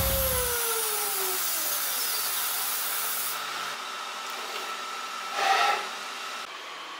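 High-speed CNC engraving spindle running with a steady hiss and thin whine as a fine bit cuts a brass medallion. In the first two seconds the whine falls in pitch, and a short louder rasp comes about five and a half seconds in.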